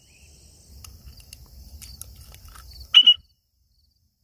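Crickets trilling steadily over a faint low rumble, and about three seconds in one short, loud cockatiel call.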